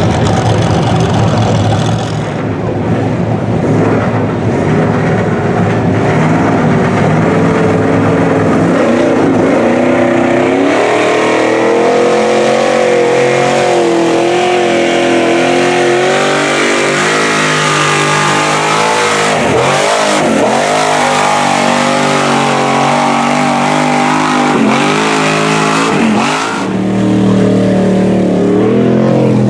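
Lifted mud trucks' engines revving hard as the trucks plough through deep water, the revs rising and falling; in the second half the revs drop and climb back sharply several times.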